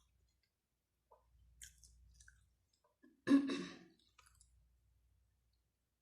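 Close-up sounds of a person eating: small clicks and wet mouth noises of chewing, with one louder, brief burst about three seconds in.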